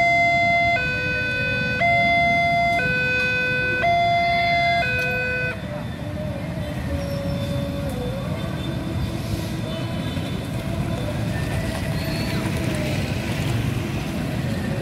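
Railway level-crossing warning alarm sounding an electronic two-tone signal, alternating high and low about once a second, which stops about five and a half seconds in. After it, motorcycles and cars crossing the tracks with a steady low engine rumble.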